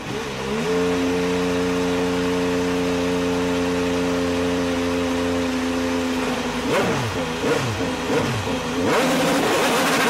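IndyCar's Honda 2.2-litre twin-turbo V6 catching and rising to a steady idle, then blipped up and down three or four times about seven seconds in, before settling at a higher, louder steady pitch as the car pulls away.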